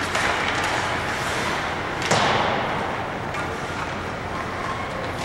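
Ice hockey game play: a steady noisy din with one sharp bang about two seconds in.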